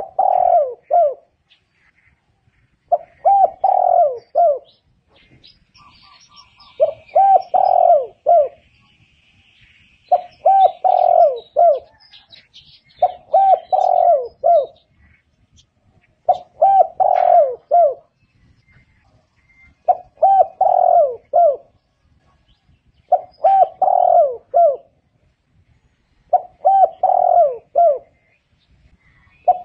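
Spotted dove cooing: a phrase of three or four low coos, repeated about every three seconds. Faint chirping of another small bird can be heard behind it for a few seconds in the first half.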